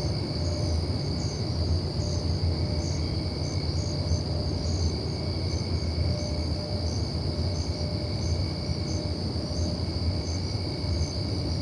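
A deep, steady rumbling roar from the night sky, of unclear origin. Under it, night insects give a steady high trill and a regular chirp.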